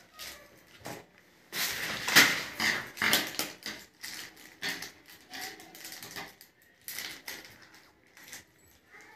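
Rustling and crinkling of a small clear plastic packet being handled, with irregular clicks and taps. It is busiest and loudest around two to three seconds in and thins to scattered ticks after that.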